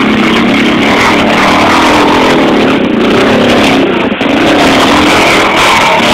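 ATV engine running hard and revving under load as the four-wheeler drives through muddy water and climbs out, its pitch rising and falling with the throttle.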